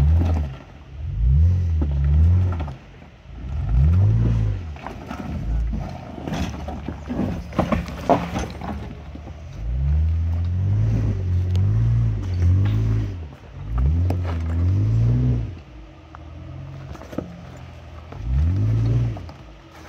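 Rivian R1T electric pickup crawling down a rocky trail: rocks crunching and knocking under the tyres, with a cluster of sharp knocks around the middle, over deep humming surges that rise and fall every second or two.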